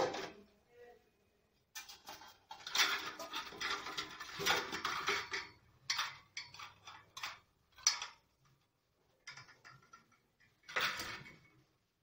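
Stainless steel vessels, idli plates among them, clattering and clinking against each other and the dishwasher's wire racks as they are handled. First a long stretch of clatter, then a few separate sharp clinks and two short bursts near the end.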